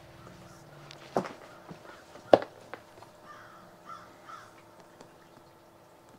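A few sharp knocks and handling noises as a boxed thermal scope is fetched and picked up, the loudest a single sharp knock a little over two seconds in. A crow caws a few times in the middle.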